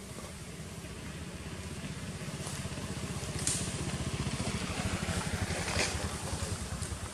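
A motor vehicle engine running with a pulsing low rumble that grows louder to a peak about six seconds in, then eases off, with a few faint crackles.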